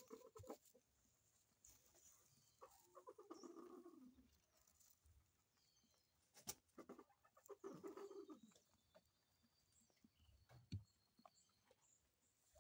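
Faint hen calls: two drawn-out clucking calls that fall in pitch, one about two seconds in and another about seven seconds in, with a few soft clicks between.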